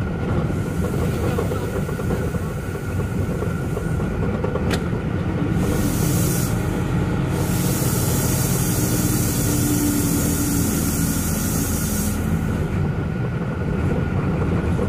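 Truck cab interior while driving: a steady engine drone with road noise, and a high hiss that comes and goes in long stretches. A single sharp click about five seconds in.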